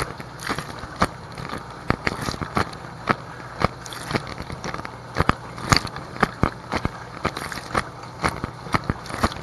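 Whirlpool dishwasher running its wash cycle, heard from inside the tub: a steady low hum of the wash pump under irregular sharp taps and splatters as water spray strikes the plastic bag around the camera and the tub.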